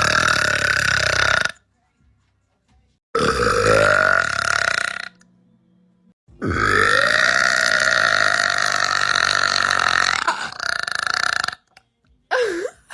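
A woman burping three times, long drawn-out belches, the third lasting about five seconds. A brief vocal sound follows near the end.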